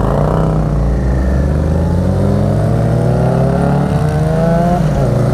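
Yamaha FZ6R's inline-four motorcycle engine accelerating away from a stop, its pitch rising steadily, then dropping once near the end as it shifts up and starting to climb again.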